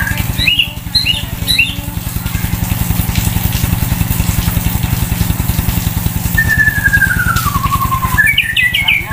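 White-rumped shama singing: a few short whistled notes in the first two seconds, a long slow downward-sliding whistle near the end, then a quick run of notes. Under it an idling engine keeps up a steady low throb.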